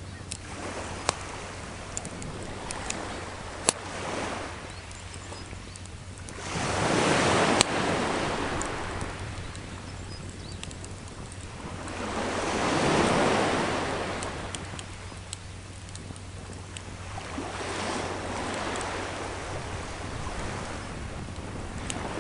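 Sea waves washing ashore in slow surges, three swells rising and falling a few seconds apart, the first about six seconds in being the loudest. Sharp pops and crackles from a small wood fire come through here and there.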